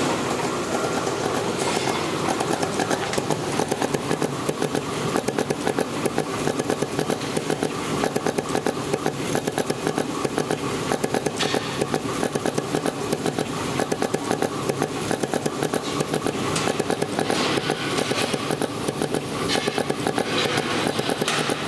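A 12-colour soft PVC dispensing machine running as its needle dispensing heads work across the moulds: a steady mechanical noise with a fast, regular pulsing throughout.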